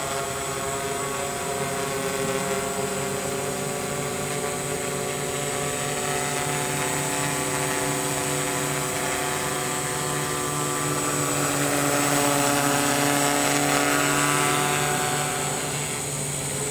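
XAircraft X450 Pro quadcopter's electric motors and propellers buzzing steadily as it hovers and descends under GPS return-to-home, growing louder about two-thirds of the way through as it comes lower and closer, then easing slightly near the end.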